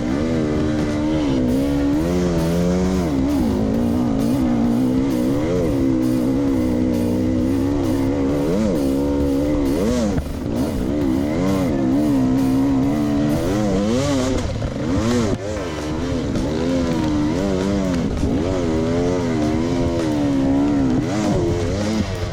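Single-cylinder enduro dirt bike engine revving hard and backing off again and again on a steep hill climb, its pitch rising and falling in quick surges, heard from a camera mounted on the bike or rider.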